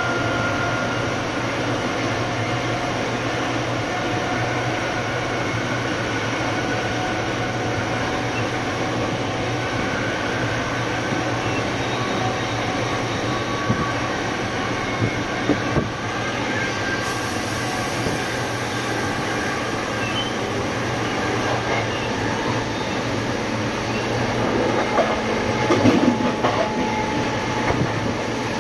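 Siemens Charger locomotive's Cummins QSK95 V16 diesel running with a steady low drone, with thin whining tones from the traction motor drive over it. A few clicks about halfway through, and a short louder rattle near the end.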